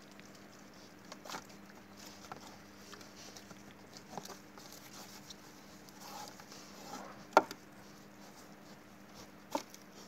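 Wild boar rooting and chewing in loose dirt, with scattered small crunches and rustles. Two sharp clicks stand out, the louder a little past halfway and another near the end.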